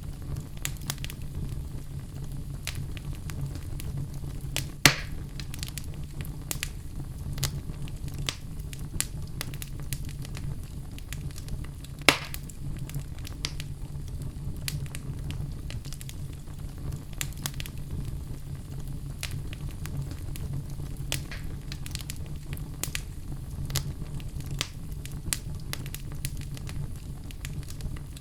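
Fireplace fire crackling steadily over a low, even rumble of the flames, with two louder pops about five and twelve seconds in.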